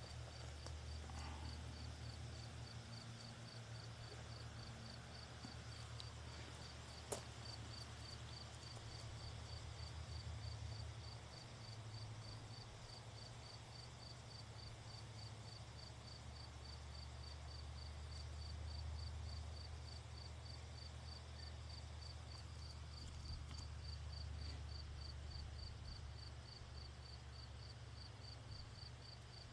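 Faint insect chirping, a steady high pulse about two or three times a second, over a low steady hum, with a single sharp click about seven seconds in.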